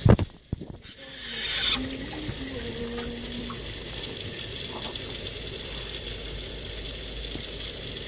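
Water from a garden hose running and splashing steadily onto wet concrete. A sharp knock at the very start, then the water noise drops away and comes back steady about a second and a half in.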